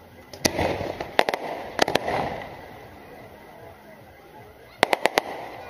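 Aerial firework shells bursting overhead: sharp bangs in small clusters about half a second in and around two seconds in, then a quick run of four or five bangs near the end.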